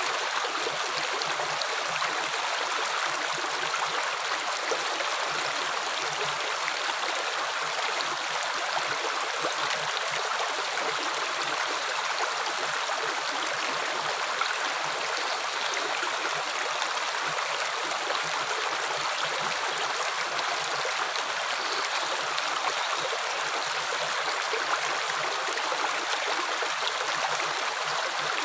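Running water flowing steadily: an even, unbroken rush of water.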